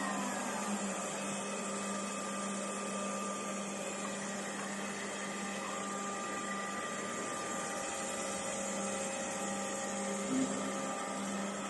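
Edge banding machine running with a steady hum. In the first second a falling whine fades out as a motor spins down, and there is a faint knock about ten seconds in.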